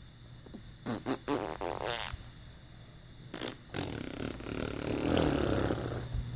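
Fart noises: a quick run of short sputters about a second in, then a longer, louder rough noise from about four seconds in.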